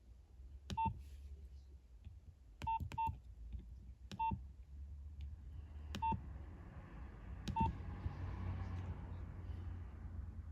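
Nokia 2651 flip phone's keypad pressed six times at irregular intervals, each press a click with a short, clean beep.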